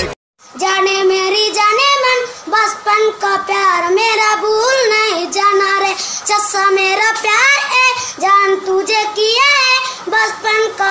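A song with a high singing voice carrying the melody in bending, wavering notes, coming in after a brief break about half a second in.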